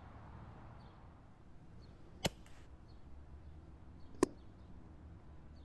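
Two sharp air-rifle shots from an EDgun Leshiy 2 firing 7.62 mm pellets, about two seconds apart, the second the louder.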